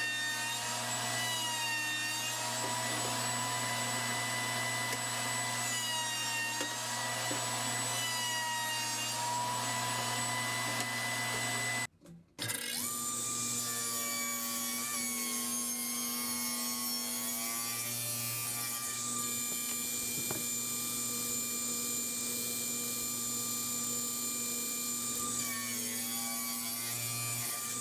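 Scroll saw running and cutting wood: a steady motor whine over a hiss, the pitch sagging slightly now and then as the blade takes the cut. The sound breaks off for a moment about halfway through, then carries on.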